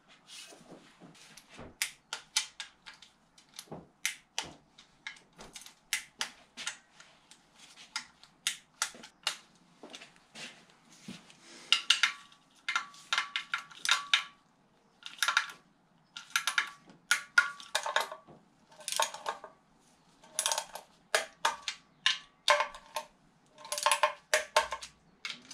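Socket ratchet clicking in quick runs as the oil sump bolts are run in, after sparser metallic clicks and taps of the bolts being fitted to the sump by hand.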